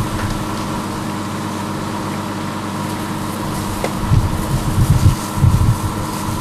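Fire engine's diesel and pump running steadily at a fixed pitch while supplying hose lines, with several low rumbles about four to six seconds in.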